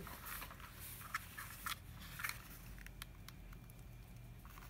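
Faint rustling and a scattering of light clicks from hands handling sheer ribbon loops and craft tools.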